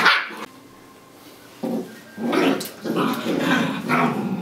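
Puppy vocalizing in play: one short burst at the start, then four short growly sounds in quick succession from about a second and a half in.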